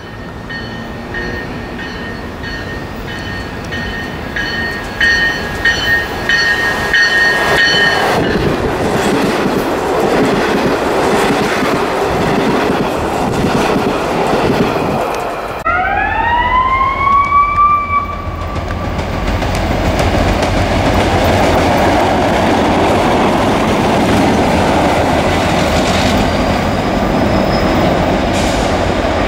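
An electric commuter train running into and past a station platform, with steady high-pitched whining tones over the rumble of the cars. After a cut about halfway through, a motor whine rises in pitch and levels off as a train accelerates, followed by a steady loud rumble of train noise with a deep low end as a pair of diesel freight locomotives run past light.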